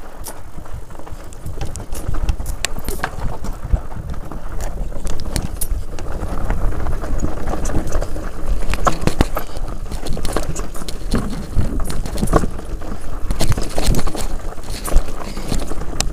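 Scott Spark full-suspension mountain bike riding down a rocky, loose trail: tyres crunching over stones, with frequent irregular clicks and knocks from the bike rattling over bumps, over a steady wind rumble on the microphone.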